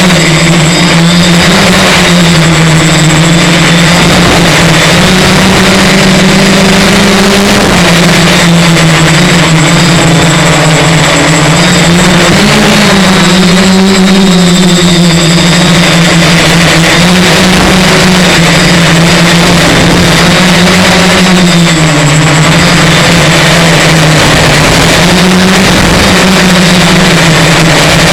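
Multirotor X-copter's electric motors and propellers buzzing loudly at close range, their pitch drifting up and down every few seconds as the throttle corrects against strong wind.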